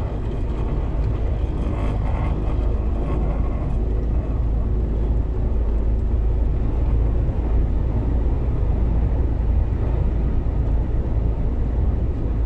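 Steady low rumble inside a vehicle's cabin while it drives at speed into a strong sandstorm headwind, with engine, road and wind noise blended together.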